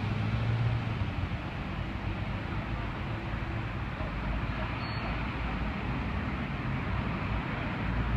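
Steady outdoor traffic noise, with a low engine hum in the first second.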